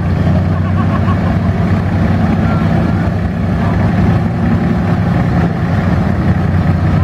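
Porsche-Diesel tractor's air-cooled diesel engine running steadily under load while pulling a weight sled at a crawl.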